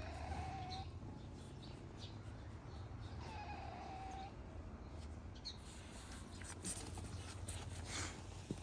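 A cat meowing: two drawn-out meows, one ending just under a second in and another about three seconds in. Brief high bird chirps come in between, over a low steady hum.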